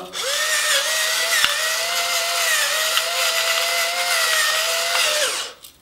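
Electric pepper mill's small motor running as it grinds pepper: a steady whine for about five seconds that cuts off shortly before the end.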